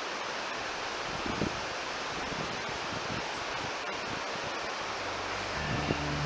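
Steady rushing of a mountain river, with a soft thump or two. Background music fades in near the end.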